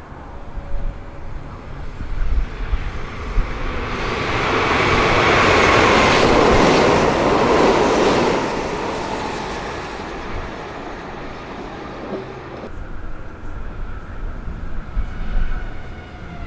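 A Meitetsu electric train passing through the station: its rolling noise swells to a peak about six to eight seconds in, then fades. Near the end a faint rising motor whine comes in.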